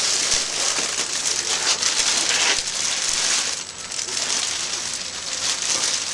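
Packing material being handled, rustling and crinkling without a break.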